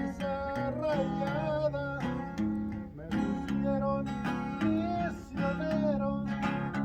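Music: acoustic guitar strumming chords under a wavering melody line.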